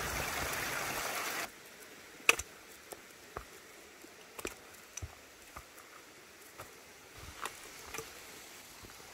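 A small headwater stream trickling over mossy rocks, cutting off suddenly about a second and a half in. After that it is quiet, with irregular light footsteps and taps on a rocky forest trail.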